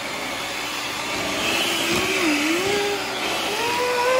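Electric hand mixer running, its beaters whirring through coconut cake batter in a stainless steel bowl. A pitched hum wavers about halfway through and then climbs near the end.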